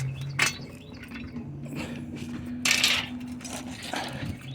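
Clinks and knocks of scrap items being handled and set down, with one louder clatter a little under three seconds in, over a steady low hum.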